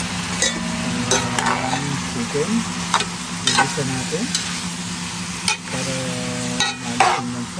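Raw chicken pieces frying with garlic and onion in a honeycomb-textured stainless pan, turned with a spatula: a steady sizzle with scrapes and knocks of the spatula against the pan every second or so, over a low steady hum.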